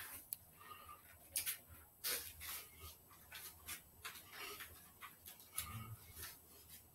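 Faint, irregular short puffs and swishes of a person breathing hard and moving while shadowboxing in boxing gloves, a few each second.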